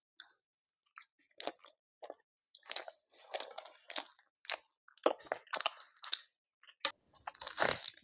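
Close-miked chewing and mouth sounds of a person eating chicken curry with pulao and puri: irregular short wet smacks and bites, coming thicker and louder near the end.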